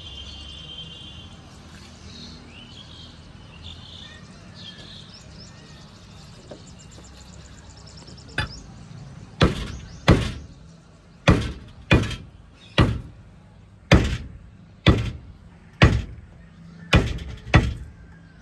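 Butcher's cleaver chopping mutton into small pieces: about eleven heavy chops, roughly one a second, starting about eight seconds in.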